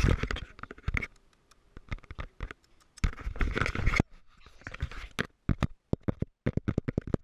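Fingers rubbing and tapping on a small action camera right at its microphone: scratchy handling noise broken by sharp clicks, with a longer rubbing burst about three seconds in and a quick string of taps near the end.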